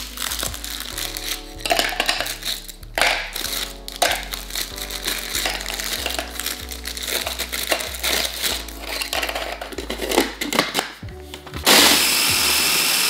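Crisp biscuits snapping and dropping into a plastic food-processor bowl, making small crunches and clicks over background music. Near the end a mini food processor runs in one steady loud burst of about a second and a half, pulsing the biscuits into crumbs.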